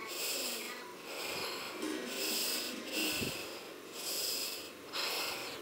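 A woman breathing hard and fast, in and out about once a second.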